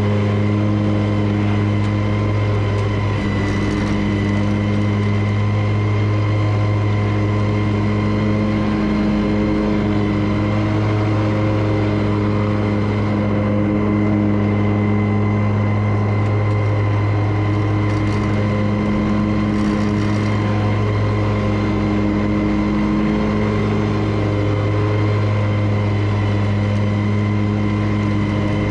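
Commercial lawn mower's engine running at a steady speed while cutting grass, its pitch holding even throughout.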